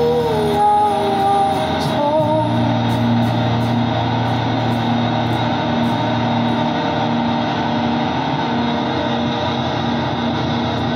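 Live indie band music: electric guitars, bass and drums, with a melodic line and cymbal hits for the first couple of seconds, then held guitar notes over a steady bass note.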